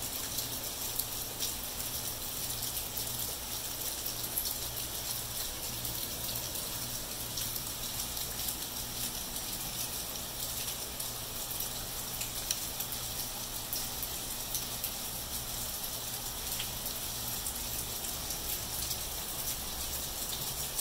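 Steady rain falling on wet pavement: an even hiss full of tiny drop ticks, with a low steady hum underneath.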